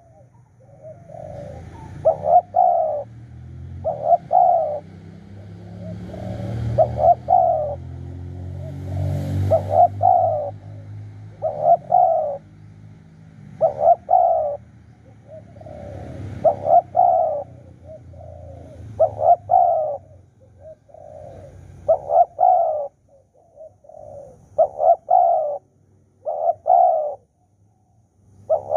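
Spotted doves cooing: a short, deep coo phrase repeated about every two seconds, a dozen or so times. A low rumble swells and fades behind the calls in the first half.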